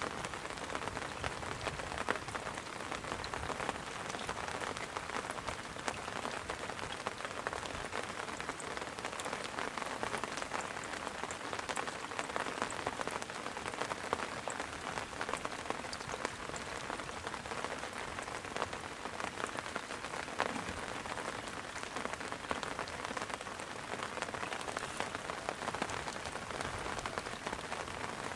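Rain falling steadily: a dense, even hiss made up of many small drop impacts.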